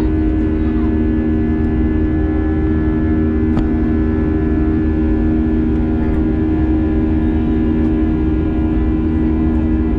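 Airbus A320-200 cabin noise during the climb after takeoff: the jet engines at climb power and the airflow give a steady low rumble with a constant hum. A single faint click about three and a half seconds in.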